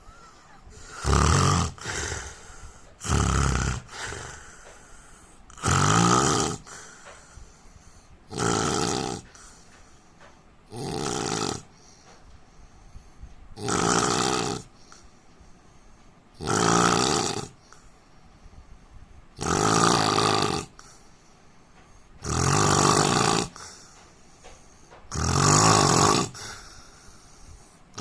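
A man snoring loudly and rhythmically, one raspy snore about every three seconds, with quiet breathing gaps between them.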